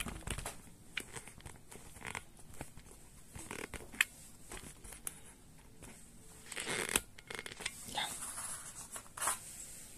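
Handling noise: scattered clicks, light knocks and rustling as objects are moved about close to the microphone, with a sharp click about four seconds in and a louder rustle around seven seconds.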